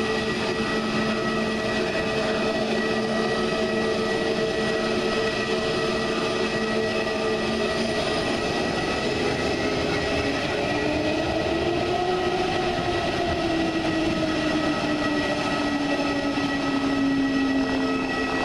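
Airbus A320neo's twin turbofan engines running at taxi power: a steady jet whine with several held tones. About ten seconds in, one tone rises slightly and then sinks slowly as the jet turns its exhausts toward the listener.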